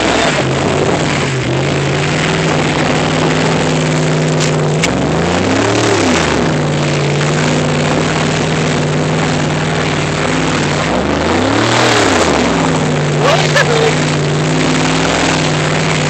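Engine of a two-wheel-drive vehicle running while driving off-road, revving up and back down twice, about six seconds apart, under a steady loud rush of noise.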